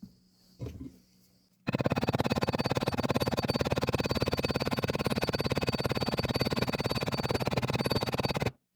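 Copper rivets being set with a hammer on a leather knife sheath: two light taps, then from about two seconds in a long, very fast, even run of hammer blows that starts and stops abruptly.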